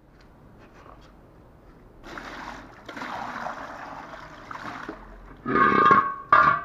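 Water poured from a bottle splashing over a soapy steel Volkswagen Beetle wheel to rinse it, starting about two seconds in. Near the end the steel wheel grates and rings twice, loudly, as it is tipped up on the wet tile floor.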